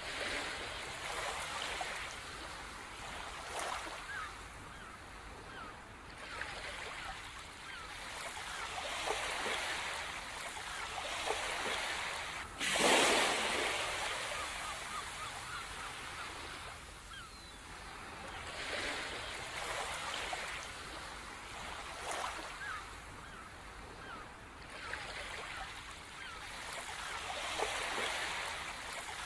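Ocean surf washing in slow swells every few seconds, with one louder surge about halfway through, and birds calling faintly over it.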